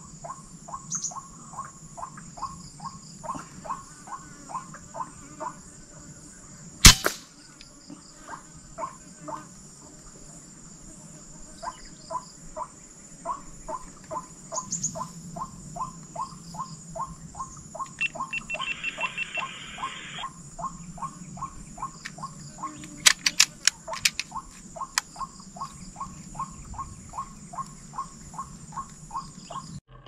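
Steady high-pitched insect buzz over a fast, even run of short repeated calls, about three a second. One sharp crack about seven seconds in, the loudest moment, and a few sharper clicks near the three-quarter mark.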